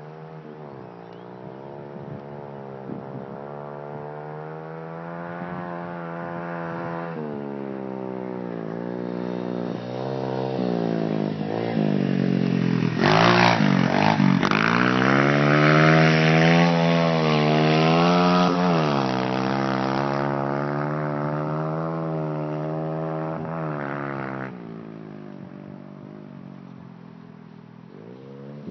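125cc pit bike engine revving up and down repeatedly as it is ridden round a dirt track. It grows louder as the bike comes close, loudest about halfway through, then drops away sharply near the end.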